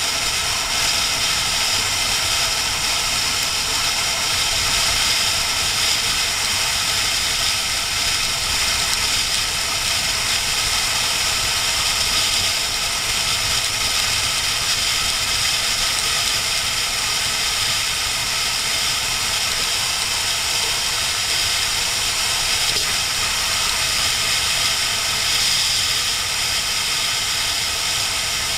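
Inline-four sport motorcycle cruising at a steady speed, its engine drone under a loud, steady rush of wind and road noise, heard from on the moving bike.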